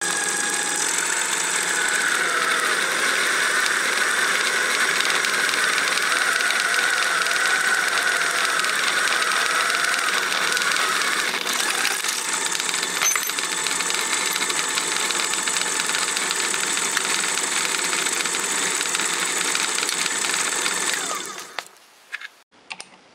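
Drill press running with its bit boring into a solid aluminum block: a steady motor whine mixed with cutting noise. The press shuts off and winds down about 21 seconds in, followed by a few light clicks.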